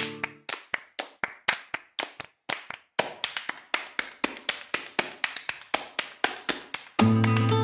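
Background music in a flamenco style: a percussion break of rhythmic taps and claps, about four or five hits a second, which gets louder and busier about three seconds in. The guitar comes back in near the end.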